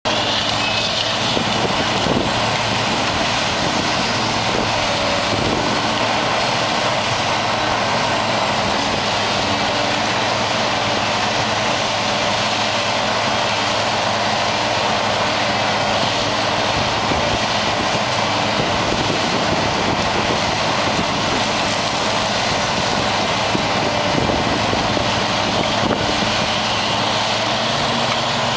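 Hitachi EX1900 mining shovel at work digging and lifting, its diesel engine running with a steady, unbroken drone and a low hum under a broad mechanical rush.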